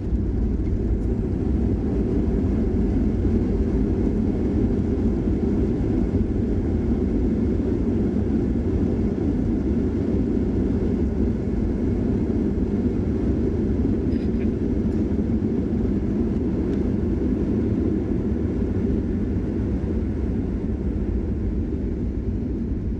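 Steady low roar heard inside the cabin of a Boeing 737 airliner during its landing rollout: engine and runway noise as the jet decelerates on the ground with spoilers raised. It eases slightly near the end.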